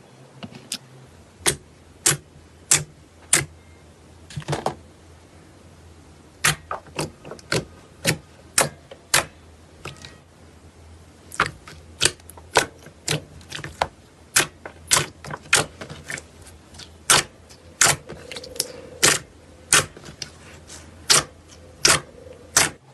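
Slime being pressed and squeezed by hand, giving an irregular string of sharp clicks and pops, about one or two a second, as trapped air bubbles burst.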